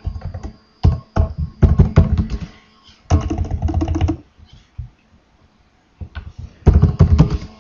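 Typing on a computer keyboard: quick runs of keystrokes, with a pause of about two seconds just past the middle.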